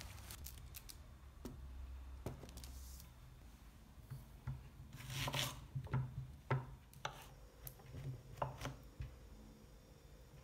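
Knife cutting firm porcini (Boletus edulis) on a wooden cutting board: irregular knocks of the blade on the board with soft slicing sounds, mostly in the second half.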